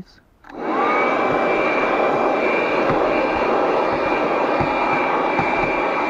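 Piranha PVC-4004 cigarette-lighter-powered handheld car vacuum switched on about half a second in: its motor spins up with a rising whine, then runs steadily with a loud whirring rush of suction. A few faint knocks sound under it.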